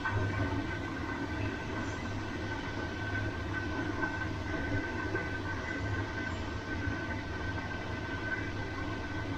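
Bosch washing machine running: a steady motor hum with a constant high-pitched whine over it.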